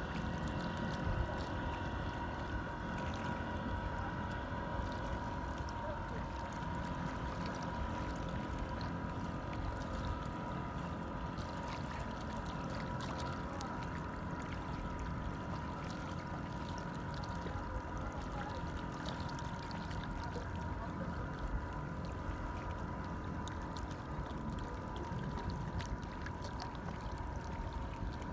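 Boat motor running steadily: an even low rumble with a faint steady whine over it.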